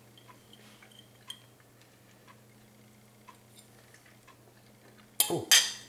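Light clicks and scrapes of a metal fork against a dish as mashed potatoes are picked up, with a short loud breathy vocal sound near the end.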